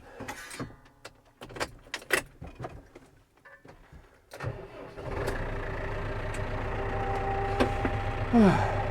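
Clicks and knocks in a tractor cab, then the tractor's engine starts from cold about five seconds in and settles into a steady idle. A loud knock and a short falling whine come near the end.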